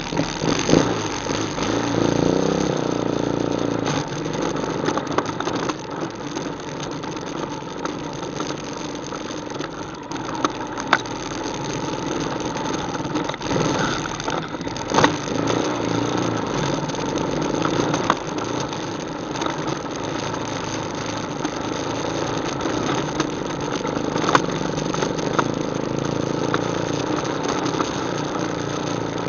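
ATV engine running as the quad rides a trail, picking up revs in the first few seconds and then holding fairly steady. A few sharp knocks and rattles come through along the way.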